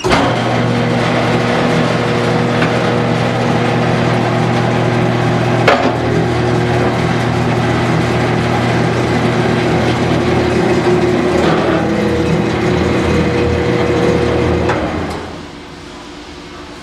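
WASP AS-42 vertical baler running: its 2-hp single-phase electric motor drives the screw-driven ram with a steady mechanical hum that starts abruptly, has a sharp knock about six seconds in where the hum changes, and stops about fifteen seconds in.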